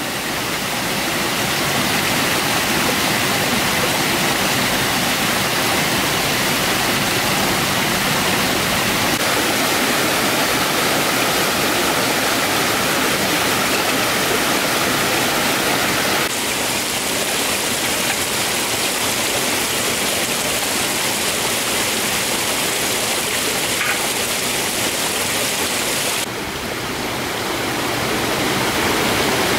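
Shallow forest stream running over rocks: a steady rush of water, shifting abruptly in level and tone about 16 and 26 seconds in.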